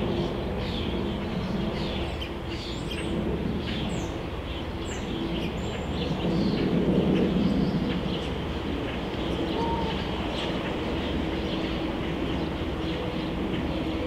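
Backyard ambience: small birds chirping over and over in short high notes, above a steady low mechanical rumble with a faint hum. The rumble swells briefly about halfway through.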